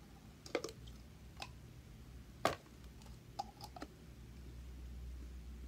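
Hard plastic clicks and knocks from a small essential-oil diffuser's cover and base being pushed and twisted together to refit the top: a handful of separate clicks, the sharpest about two and a half seconds in.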